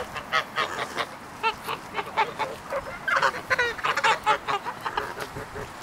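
A flock of white domestic geese honking: many short calls overlapping in quick succession, busiest from about three to four and a half seconds in.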